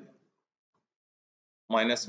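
A man's speaking voice trails off, then near-total silence for about a second and a half, and his speech starts again near the end.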